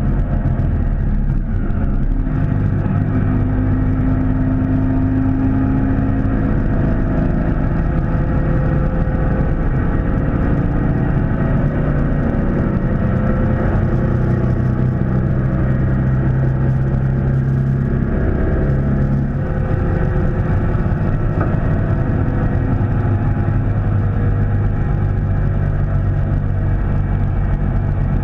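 Sidecar motorcycle engine running steadily at road speed, its pitch drifting slightly with the throttle, with a brief dip in the engine note about two-thirds of the way through.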